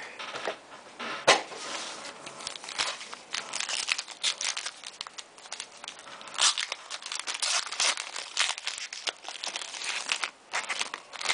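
Foil trading-card pack wrappers crinkling and tearing as a pack is handled and ripped open, in irregular rustling bursts, with one sharp tap about a second in.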